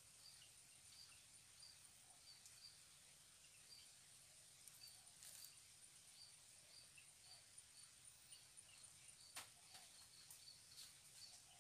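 Near silence with faint insects: a regular high chirp about twice a second over a steady high-pitched drone, and a few faint clicks about three-quarters of the way through.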